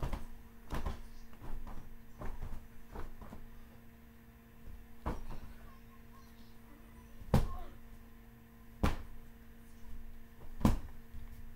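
Irregular thumps and knocks of a child moving about a room with a wooden floor, about ten in all, spaced unevenly, the loudest two about seven and nine seconds in, over a faint steady hum.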